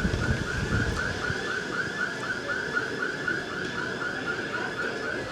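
An electronic siren in a fast yelp, rising and falling about four times a second, over low street noise.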